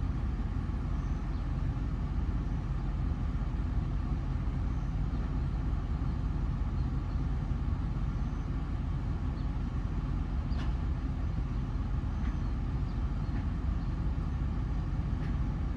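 Steady low rumble of a vehicle's engine and road noise while driving.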